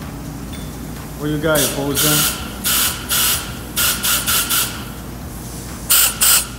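A handheld pneumatic tool on a shop air hose triggered again and again, letting out about ten short hisses of compressed air, with a short gap before the last two.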